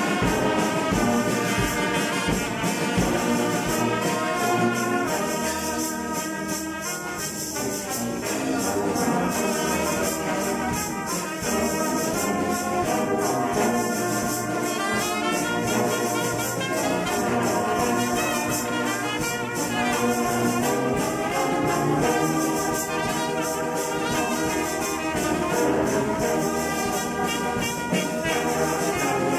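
Brass band of trumpets and Jupiter sousaphones playing a tune together, loud and full, over a steady beat.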